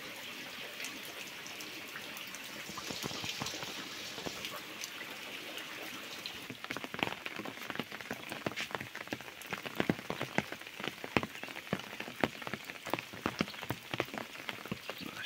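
Heavy rain falling steadily. From about halfway in, many sharp drop hits come through as the rain beats on the leaves of trees and bushes.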